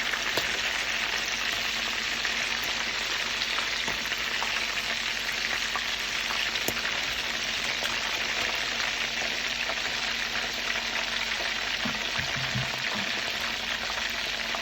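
Chicken pieces frying in hot oil in a pan: a steady sizzle with a few faint pops.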